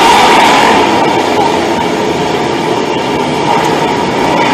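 Many motorcycle engines running together in a dense, continuous din, with revs rising and falling.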